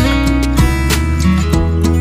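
Background music with strummed acoustic guitar and a steady low bass.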